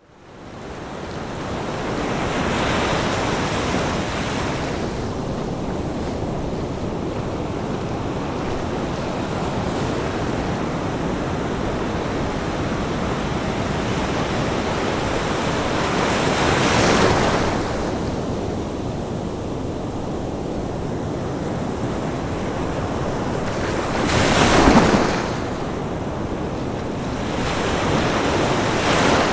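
Ocean surf breaking on a beach: a continuous rush of water that fades in at the start, with four waves swelling and crashing, the loudest one near the end.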